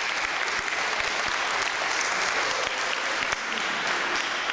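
A crowd applauding: many hands clapping steadily.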